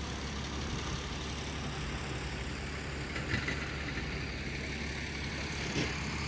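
Vehicle engines idling in a steady low drone, with two brief knocks, one about three seconds in and one near the end.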